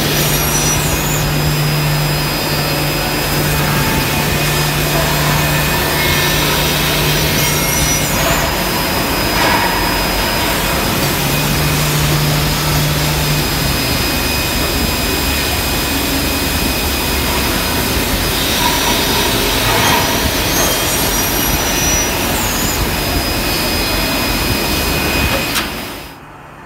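Holztek Tectra 328 CNC panel saw running and cutting through board under its pressure beam: a loud, steady whir and hiss. A low hum under it stops about halfway, and the whole sound drops away suddenly just before the end.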